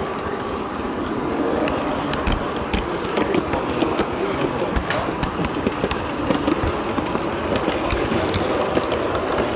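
H0-scale model train running, with its wheels giving sharp, irregular clicks over the rail joints and track, heard from a camera carried on the train. Under it is the steady murmur of a busy exhibition hall.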